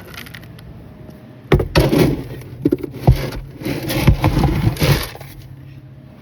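Loud clattering and scraping of objects being handled, with several sharp knocks, starting about a second and a half in and stopping around five seconds in.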